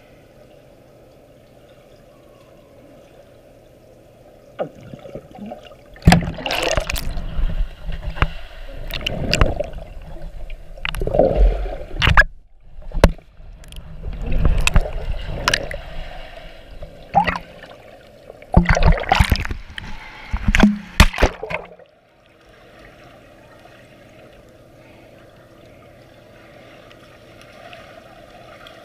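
Underwater swimming-pool sound through a GoPro's waterproof housing: a steady low hum, then about six seconds in, some sixteen seconds of loud rushing water and bubbles with sharp clicks and knocks, before the steady hum returns.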